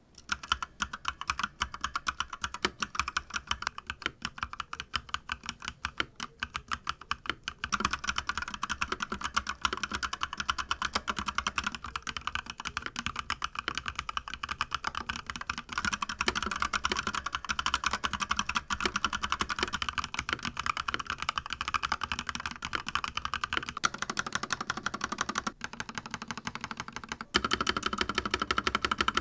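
Rapid, continuous typing on a fully lubed custom mechanical keyboard: a dense run of keystrokes from switches lubed with Krytox and stabilizers lubed with Permatex, with a short lull a little before the end.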